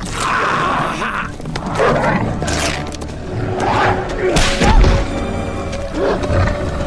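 Film fight soundtrack: score music under the snarls and roars of the Hulk and the mutant dogs attacking him, with a heavy thud about two-thirds of the way through.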